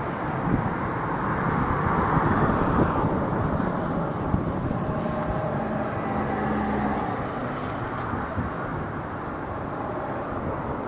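JR West 103 series electric train rolling slowly, a steady rumble of wheels and running gear, with a brief low hum about five seconds in.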